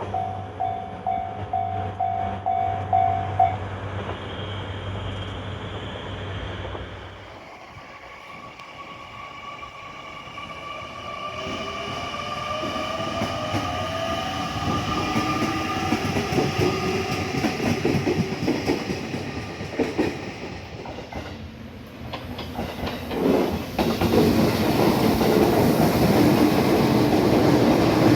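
A JR Kyushu YC1 series diesel-electric hybrid railcar approaching and passing. Its running noise carries a whine that rises in pitch, and it grows loud with wheel clatter near the end. At the start a level-crossing bell rings in even pulses, about two a second, and stops a few seconds in.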